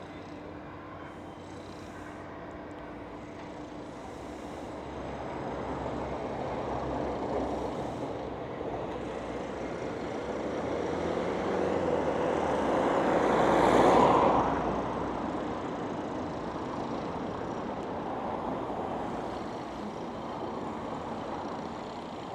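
A road vehicle passing by: a steady noise that swells to its loudest about two-thirds of the way through and then fades away.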